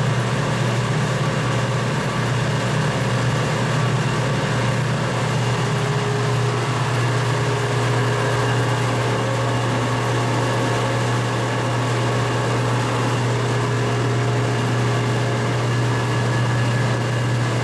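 Alternator, starter and generator test stand running, its drive spinning an alternator under load: a steady machine hum with a strong low drone. A higher steady tone joins about six seconds in.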